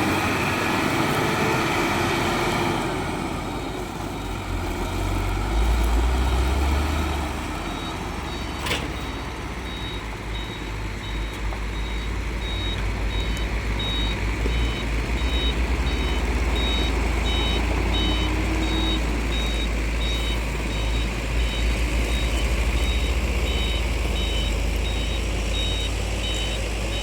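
A heavy diesel engine on a construction vehicle runs with a deep rumble while a reversing alarm beeps in a steady repeating pattern from a few seconds in. There is a single sharp knock about nine seconds in.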